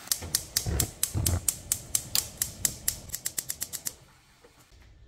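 Gas stove burner's spark igniter clicking about four times a second, the clicks quickening toward the end, then stopping once the burner lights. A couple of dull bumps come in the first second or so.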